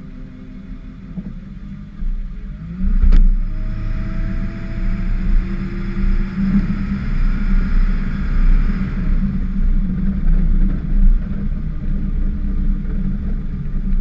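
Ford F-550 plow truck's engine running, which picks up and revs up about two to three seconds in as the truck pulls ahead, then pulls steadily. There is a sharp click about three seconds in, and a hiss over the engine from about four to nine seconds in.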